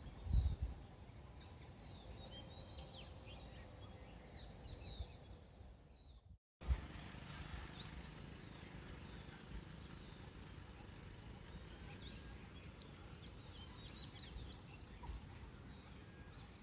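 Forest ambience with several birds chirping in short, high sweeping notes over a low steady rumble. A low thump comes just after the start, and the sound cuts out for a moment about six seconds in, then resumes.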